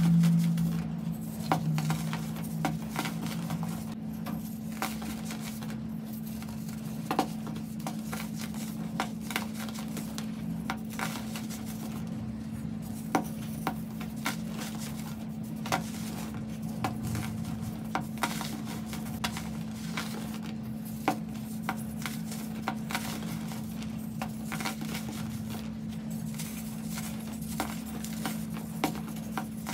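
Compressed baking soda blocks crumbling and crunching as they are squeezed and rubbed by hand: irregular soft crackles with a sharper crunch every second or two, over a steady low hum.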